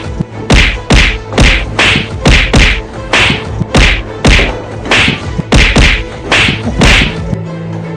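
A rapid series of sharp whacks, about two a second and often in close pairs, stopping about seven seconds in.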